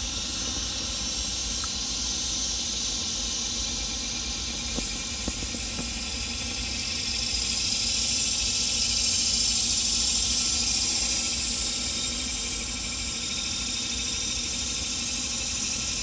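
Steady outdoor hiss of background noise, growing louder in the middle and easing off again.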